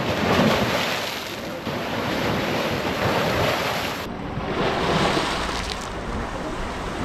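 Small sea waves breaking and washing over a flat rocky shore, with wind buffeting the microphone.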